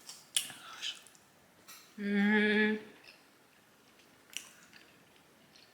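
Close eating sounds: wet mouth smacking and chewing clicks. About two seconds in comes a steady hummed 'mmm' of about a second, the loudest sound, followed by a few faint clicks.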